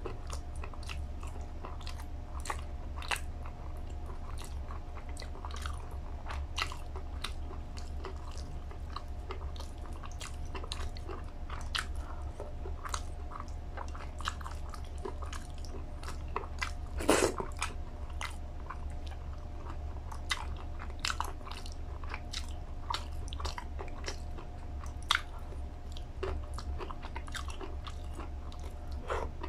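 Close-miked chewing and wet lip-smacking while eating chicken in a creamy coconut-milk sauce, with many sharp smacks a second and one louder click a little past halfway, over a steady low hum.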